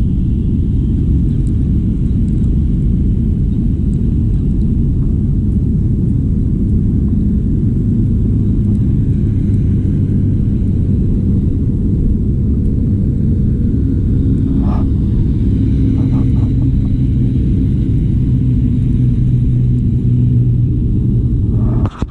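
Strong sea wind buffeting the microphone: a loud, steady low rumble.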